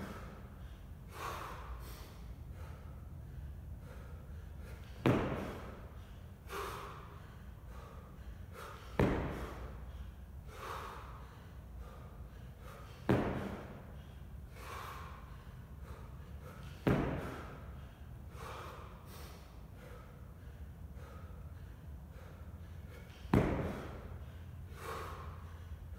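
Heavy rhythmic breathing of a man lifting a 24 kg kettlebell overhead in repeated jerks: a sharp, forceful breath about every four seconds, each followed a second or so later by a softer breath.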